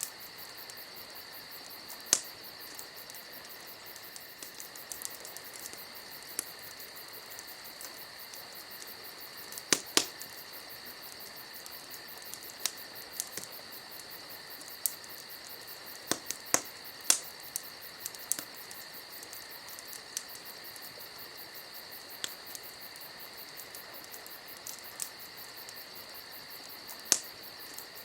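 Campfire crackling, with sharp irregular pops of burning wood every second or few, over a steady chorus of chirping crickets.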